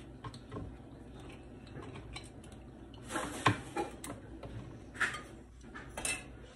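Hand-held manual can opener clicking and scraping as it cuts the lid off a tin of tuna, with a sharp metal clank about three and a half seconds in and short scrapes near five and six seconds.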